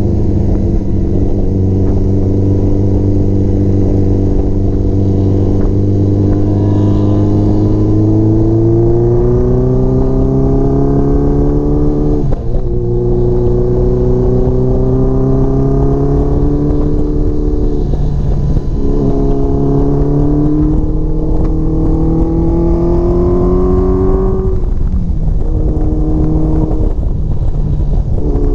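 Honda CBX750 cafe racer's inline-four engine heard from the rider's seat. It cruises steadily, then accelerates up through the gears: the pitch rises, drops briefly at each of three gear changes, then climbs again. Wind noise runs underneath.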